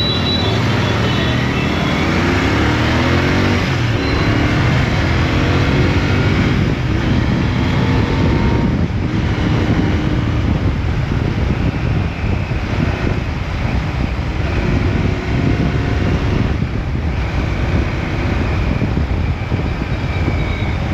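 Royal Enfield Interceptor 650's parallel-twin engine through its stock exhaust, pulling away from a standstill and climbing in pitch with each gear. It then settles into a steady cruise with wind rushing past.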